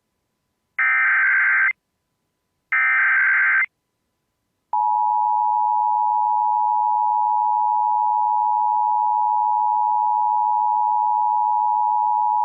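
Emergency Alert System SAME header: two roughly one-second bursts of digital data tones, about a second apart. After a second of silence, the steady EAS attention tone starts about five seconds in and holds at one pitch.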